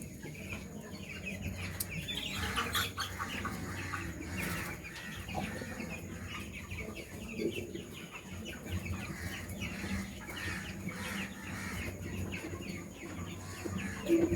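A flock of young chickens clucking and cheeping, many short calls overlapping, over a low steady hum.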